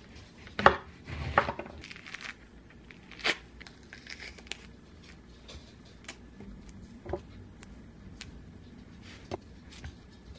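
Chef's knife cutting through an orange and knocking on a bamboo cutting board: two sharp knocks about a second in and another near three seconds. Then softer tearing and scattered small clicks as the orange is peeled and pulled apart into segments by hand.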